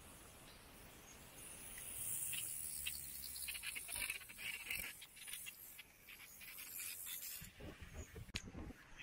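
Faint outdoor ambience: a steady high-pitched insect buzz from roadside grass, stronger through the middle, with scattered light clicks and taps.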